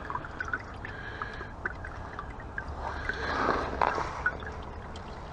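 Engine oil dribbling and dripping from the loosened oil filter housing, with a few light clicks of handling.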